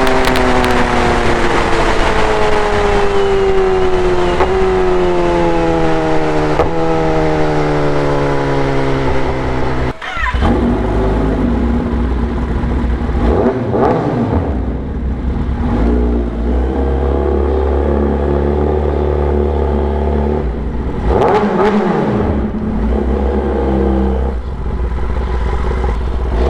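Kawasaki ZX10R inline-four with an SC Project full-system exhaust. It first winds down in revs, jumping back up at downshifts about four and seven seconds in, then runs at lower, steadier revs with a deep rumble.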